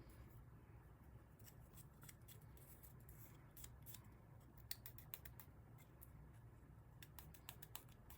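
Faint, quick clicks and scratches of small handwork, over a low steady hum.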